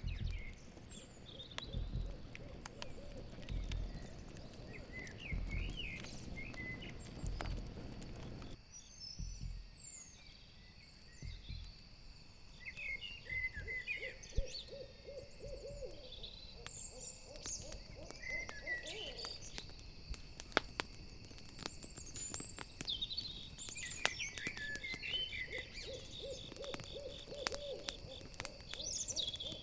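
An owl hooting in quick pulsed runs, once about halfway through and again near the end, over crickets chirping steadily and the pops and crackles of a campfire. Higher chirping calls come and go throughout.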